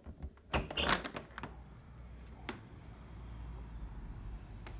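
A door being opened: a cluster of clicks and clatter from the latch and handle about half a second to a second in, a single click a little later, then a steady low rumble once it is open.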